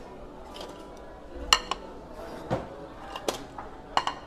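Ceramic dinner plates clinking and clattering as they are handled and set down at the table: about five sharp clinks, each with a short ring.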